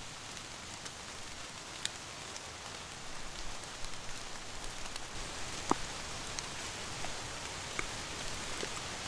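Steady rain falling on a canvas tent, with a few sharper single drop hits.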